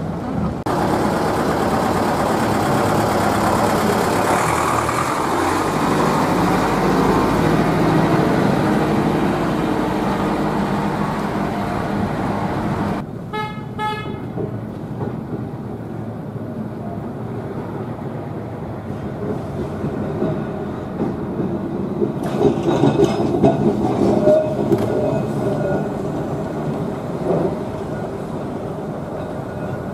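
A Leyland double-deck bus's diesel engine running loud as the bus pulls away for the first dozen seconds, then drops off suddenly. A bell rings rapidly for about a second, and later a double-deck tram rolls in on its rails with rumbling and some wheel squeal.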